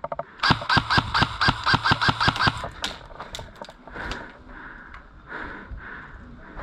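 Airsoft gun firing a quick string of about ten shots, around five a second, each shot a sharp crack with a ringing tone. After the string stops, a few scattered faint clicks and rustling follow.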